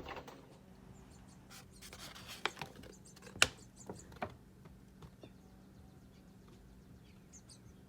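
Faint high cheeps of hungry nestling birds begging in the nest, with scattered small clicks and one sharp click about three and a half seconds in.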